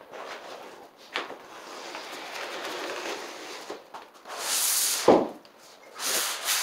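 Vinyl sheet flooring rustling and swishing as it is dragged and unrolled across the floor, with two louder swishes near the end and a sharp thump about five seconds in.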